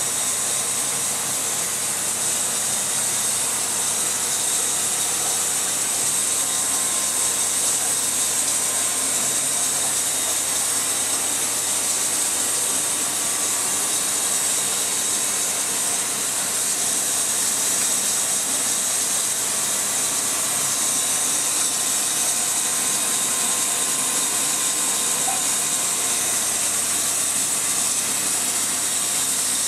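Steady hiss with a low, even hum underneath: aquarium aeration running, with the air pump driving the sponge filters in a row of discus-fry tanks.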